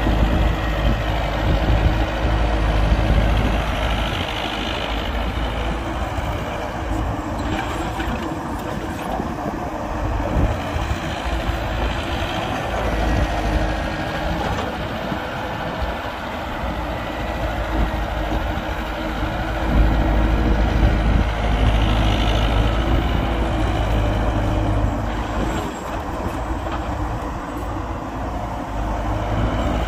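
Heavy diesel engines of an excavator and dump trucks running steadily while the excavator loads a truck. The engine note swells under load near the start and again about two-thirds through.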